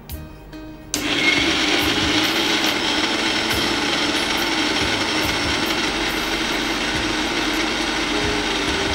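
Electric mixer-grinder switched on about a second in, running steadily as it dry-grinds roasted spices in its stainless steel jar.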